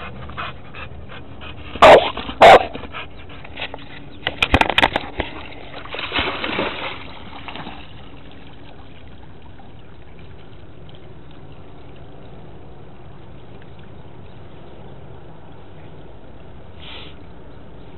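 Dog barking and yipping excitedly: two very loud barks about two seconds in and a quick flurry around four to five seconds. Then a splash and sloshing water as it goes into the river, after which only a steady low hiss remains.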